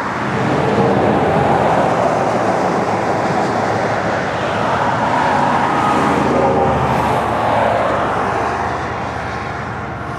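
Road traffic noise: a vehicle passing close by, swelling about a second in and easing off near the end.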